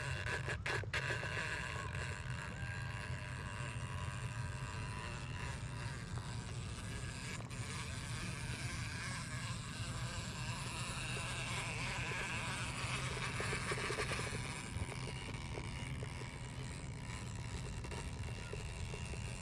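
Axial RBX10 Ryft 1/10-scale RC rock bouncer's brushless motor and geared drivetrain whining as it crawls over rock. The whine shifts in pitch and swells with the throttle, loudest a little past the middle.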